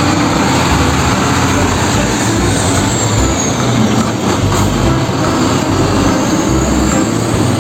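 Heavy truck engine running with a steady, loud rumble and noise, and a faint high whine that falls about three seconds in and rises again near the end.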